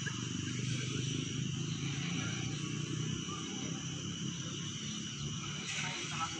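Steady low rumbling noise on an outdoor football pitch, with faint steady high-pitched tones above it.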